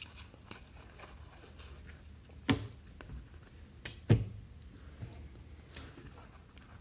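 Trading cards being handled over a table: faint slides and clicks of cards, with two short knocks about two and a half and four seconds in as cards are set down or tapped on the table.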